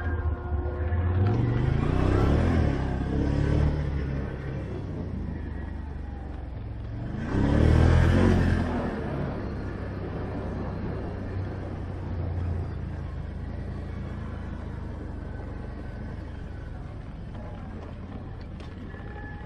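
ATV engine running under throttle, revving up twice, about a second in and again around eight seconds in, the second time louder, with a steady low rumble between.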